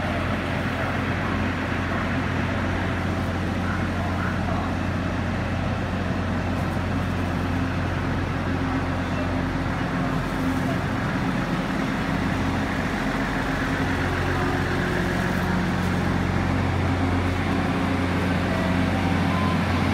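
DR3000-series diesel multiple unit's underfloor diesel engines running with a steady low drone as the train moves along the platform, getting slightly louder near the end.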